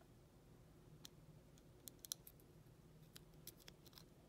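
Faint, scattered metallic clicks of a tension wrench and lock pick working in the keyway of an Ace closed-shackle five-pin padlock, a few clustered in the middle.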